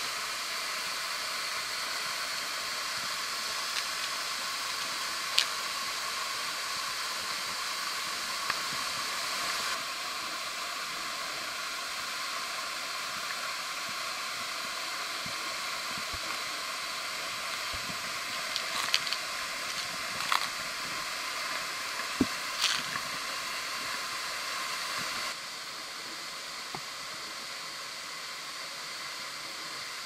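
Steady rush of a wide waterfall pouring over a rock face into a pool, with a few sharp clicks about five seconds in and again past the middle.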